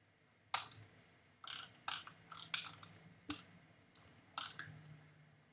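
Faint, irregular computer mouse clicks, about ten of them, spread unevenly over a few seconds.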